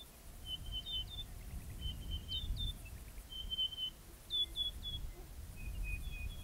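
Western ground parrot calling: thin, high whistled notes in short runs, each run stepping up in pitch, like a kettle coming to the boil. A low rumble runs underneath.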